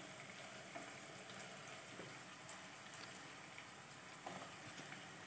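Faint, steady sizzle of chopped onions and green capsicum frying in oil in a pan.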